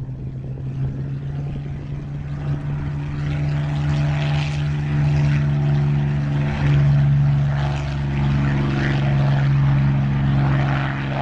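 Spitfire's V12 piston engine and propeller at full power during the take-off run and climb, a steady deep drone that grows louder over the first few seconds and then holds.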